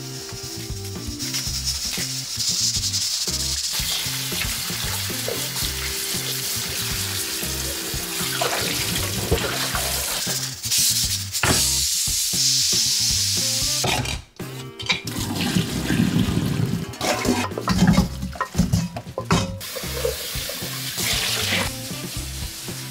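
Water running from a tap into a sink, over background music with a steady beat, with a few knocks in the second half.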